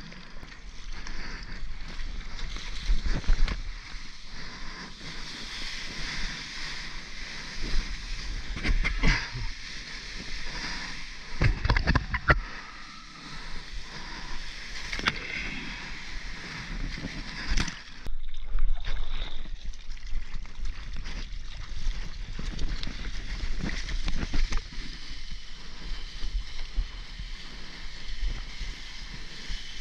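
Seawater splashing and sloshing right at a mouth-mounted GoPro as a surfer paddles a soft-top surfboard through small breaking waves, with a steady rush of whitewater. There are repeated sharper splashes, the loudest about twelve seconds in and again near eighteen seconds.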